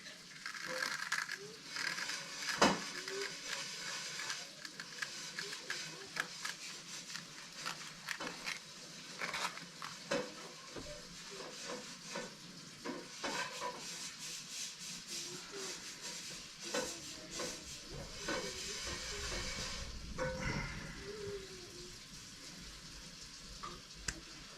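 Sandpaper being rubbed by hand against a pen blank: an irregular dry scratching hiss with scattered clicks, and one sharper knock about two and a half seconds in.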